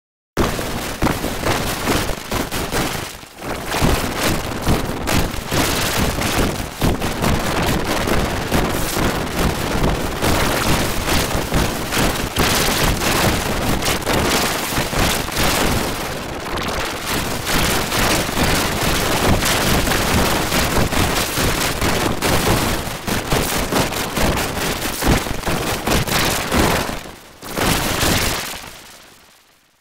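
Loud, harsh crackling noise, like heavy static: the commercial's soundtrack distorted beyond recognition by an editing effect. It starts suddenly, dips briefly about three seconds in and again near the end, then fades out.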